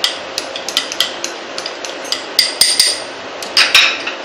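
Small glass bowl clinking against the rim of a glass mixing bowl: a string of sharp, irregular clinks as the last of the semolina is knocked out, with the loudest clusters around the middle and near the end.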